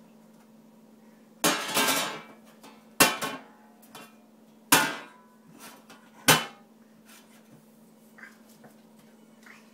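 Lid of a stainless steel step trash can banged by a toddler's hands and a plastic teething toy: four loud metallic bangs about a second and a half apart, the first a short flurry of hits.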